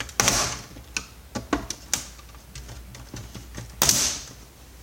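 Plastic shell of a Samsung monitor being pried apart: a string of sharp clicks and snaps as its clips let go, with two louder cracks, one at the start and one near the end.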